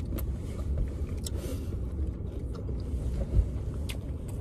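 Steady low rumble of a car's engine running, heard inside the cabin, with a few faint clicks.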